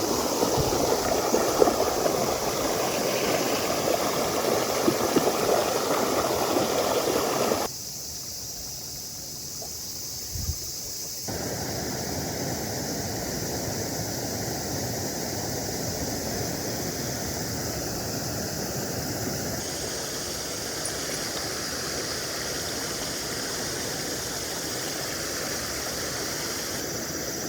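Mountain stream water rushing, a steady hiss of flowing water. It is loudest for the first several seconds, then drops abruptly and comes back softer a few seconds later.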